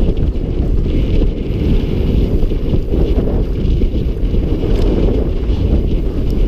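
Wind buffeting a helmet-mounted camera's microphone during a fast mountain-bike descent on a dirt trail, with tyre and trail rumble and a hiss that comes and goes. The rumble is loud and steady.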